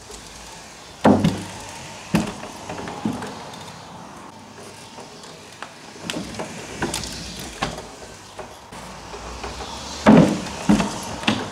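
Permobil F3 power wheelchair rolling over a plywood ramp, its electric drive running, with knocks and thumps as the wheels go on and off the plywood and the freshly adjusted air shocks take the bumps. The loudest knocks come about a second in and in a cluster near the end.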